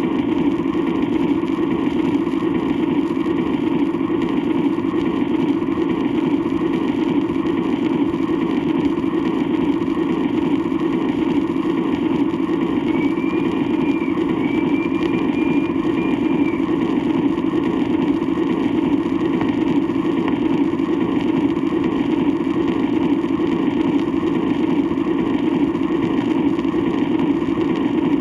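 Steam-era train sound effect from a 78 rpm record: a moving train running continuously in a steady, unbroken rumble, with shellac surface noise. A faint high tone sounds briefly twice near the middle.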